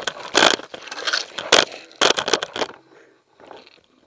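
Footsteps crunching and scraping on gravel and rocky ground, with brush rustling against the player. The steps stop a little before three seconds in, and it goes nearly quiet.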